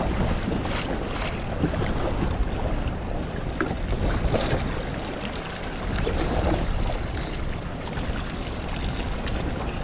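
Wind buffeting the microphone and choppy waves washing against a fishing boat's hull, with a few small knocks on the boat.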